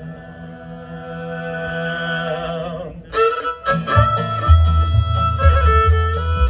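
Acoustic bluegrass band of fiddle, upright bass, guitar and banjo holding and swelling a final chord, which breaks off sharply about three seconds in. A different fiddle-led bluegrass piece with a strong upright bass line then starts.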